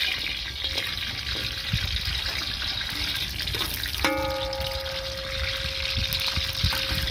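Whole garlic cloves sizzling steadily in hot oil in a wok. About four seconds in there is a metal clink as a perforated skimmer meets the wok, followed by a faint steady tone.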